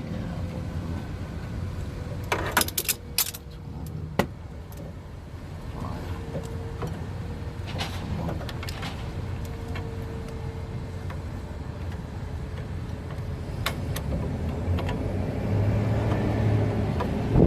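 Metal hand tools clinking and tapping against suspension parts: a quick cluster of sharp clinks about two seconds in, another about a second later, then scattered lighter ticks. A steady low rumble sits underneath.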